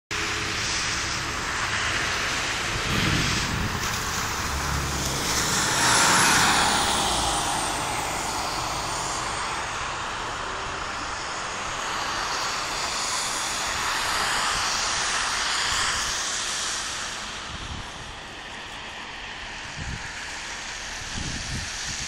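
Road traffic: car tyres hissing on a wet, slushy road, the noise swelling as vehicles pass and loudest about six seconds in.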